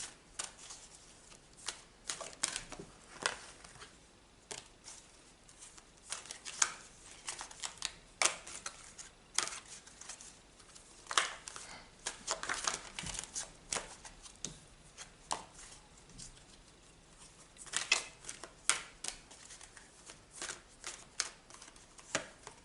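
Tarot cards being handled and laid out: a string of irregular card snaps and slaps with soft rustling in between.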